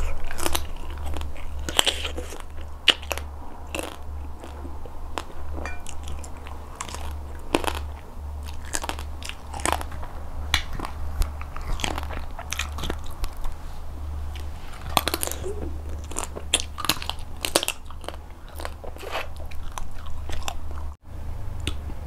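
A person chewing and biting raw blue swimmer crab meat close to a clip-on microphone: many short, sharp wet clicks and crunches, over a steady low hum.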